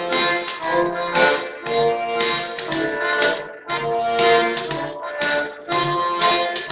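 Piano accordion playing a melody in held, chord-backed notes, with a pandeiro (Brazilian tambourine) keeping a steady beat of jingle strokes, about three a second.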